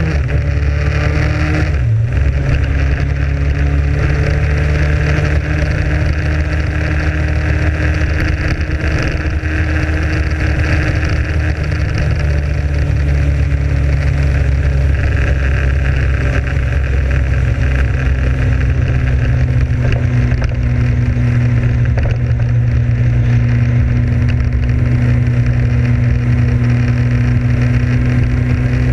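Motorcycle engine running under way, with a steady rush of wind and road noise. The engine note breaks off briefly about two seconds in, then holds steady and climbs slowly over the second half.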